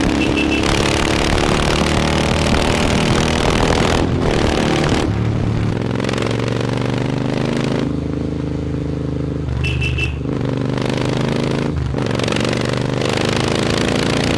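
Royal Enfield Interceptor 650's 648cc parallel-twin engine running through a loud aftermarket AEW exhaust under way. The exhaust note rises in pitch, dips briefly and climbs again several times, typical of accelerating up through the gears, with a lower, steadier stretch in the middle.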